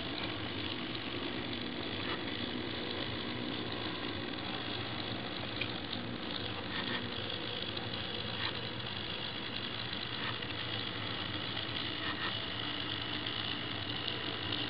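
HO scale model switcher locomotive running along the track: a steady whir from its motor and wheels, with a few faint clicks scattered through.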